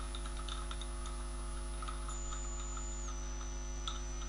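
Steady electrical mains hum from the recording chain, with faint, irregular computer keyboard key clicks as code is typed. A faint high whine steps down in pitch about three seconds in.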